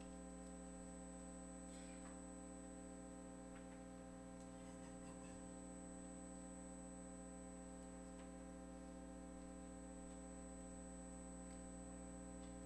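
Near silence: a steady hum, with a few faint clicks.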